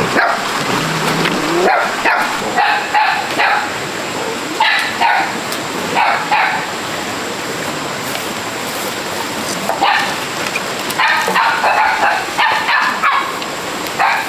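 A dog barking and yipping in several short bursts, with a quieter pause of a few seconds in the middle.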